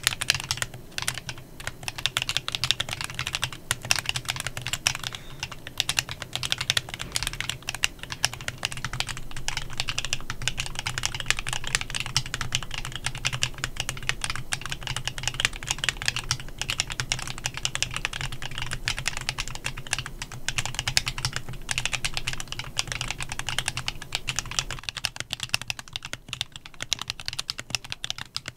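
Continuous fast typing on a Klein Mont Cervin custom mechanical keyboard fitted with factory-lubed Candy Vanilla switches, a dense, unbroken run of keystrokes that thins out slightly near the end.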